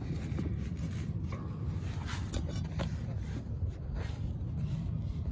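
Light scraping and rubbing of a hand and a rubber drive belt against the lawn tractor's underside, with a few small clicks, over a steady low rumble.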